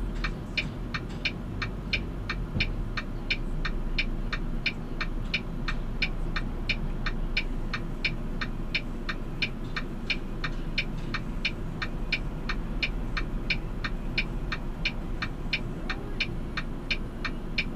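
Truck engine idling, heard from inside the cab as a low rumble, with a steady ticking about two and a half times a second over it.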